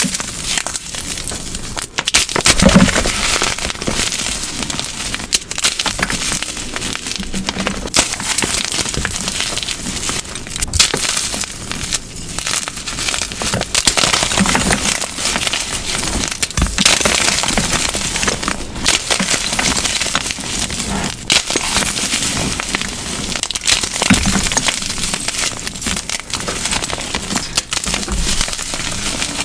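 Glitter-coated gym chalk cubes crushed and crumbled by hand: a dense, continuous crackling crunch of chalk breaking apart, with a few heavier crunches as whole cubes give way.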